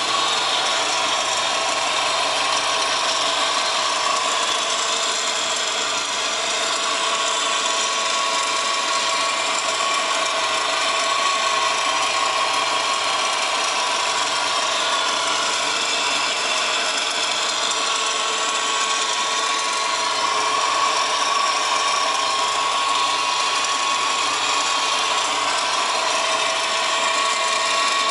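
Subaru WRX GDB turbocharged flat-four engine idling, with a steady whine from a failing A/C idler pulley.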